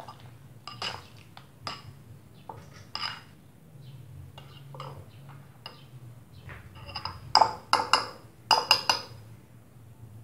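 Metal spoon clinking and scraping against a ceramic bowl while oatmeal is stirred, with a run of loud clinks about seven to nine seconds in.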